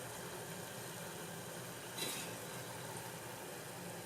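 Hot oil sizzling steadily and softly around kunukku (adai-batter lentil fritters) in a kadai; the quieted sizzle is the sign that the fritters are fried through. A brief metal clink about two seconds in.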